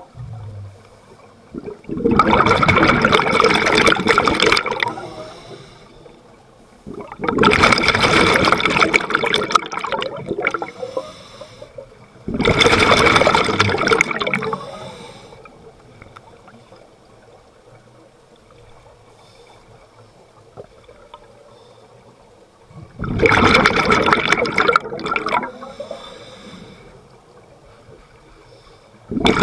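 Scuba diver breathing out through a regulator underwater: exhaled bubbles rush past in four bursts of two to three seconds, with quieter stretches between, a long lull in the middle, and another burst starting at the very end.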